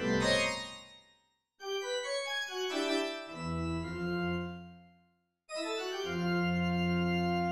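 Organ chords in three phrases with short silences between them: a chord that fades away within about a second and a half, then shifting chords with deep bass notes entering about three seconds in, then a long held chord with a strong bass, starting a little before the end.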